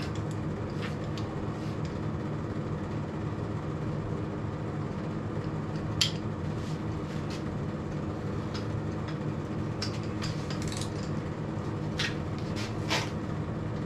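Steady low hum with a few sharp metallic clicks and clinks as a torque wrench is handled, reset and set onto the posi carrier's adapter plate, the clearest about six seconds in and several more near the end.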